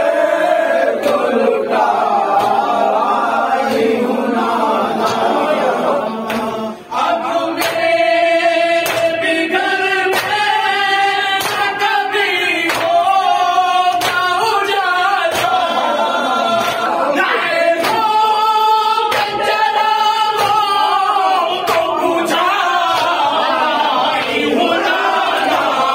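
A crowd of men and boys chanting a Shia mourning lament (nauha) in unison, long sung lines rising and falling, with regular sharp slaps about once a second, typical of chest-beating (matam). The chanting breaks off briefly about seven seconds in.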